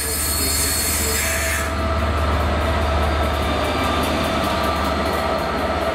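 Class 67 diesel locomotive passing close along the platform, its EMD V12 two-stroke engine running with a steady low hum over the rumble of wheels on rail. A high hiss drops away near two seconds in.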